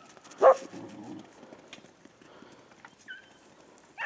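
A beagle gives one short, loud bark about half a second in, then a faint short call a little after three seconds.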